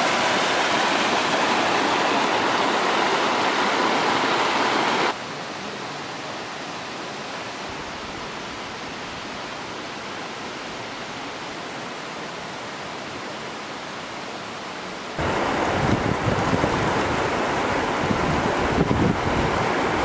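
Small waterfall cascading over rocks, a steady rush of water. About five seconds in it cuts to a softer, steady rush, and about fifteen seconds in to a louder flowing river with gusting wind rumbling on the microphone.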